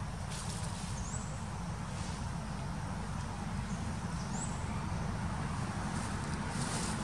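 Outdoor ambience: a steady low rumble, with two faint, short rising chirps, one about a second in and another past four seconds.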